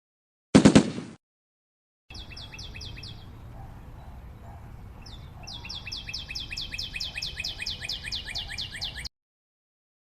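A short, loud pitched burst, then a rapid trill of repeated high falling chirps, about four or five a second, that sounds like a bird call and goes on for about seven seconds before cutting off.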